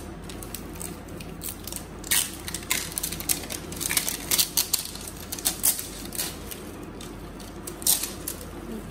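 Perfume packaging being handled: plastic wrap crinkling and paper and cloth rustling, with irregular light clicks and taps.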